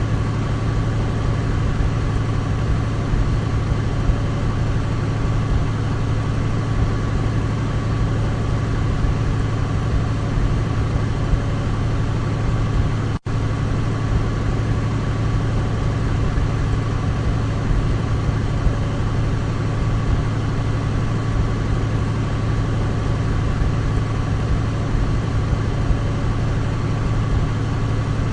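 Douglas DC-3's twin radial piston engines droning steadily, with a split-second gap in the sound about 13 seconds in.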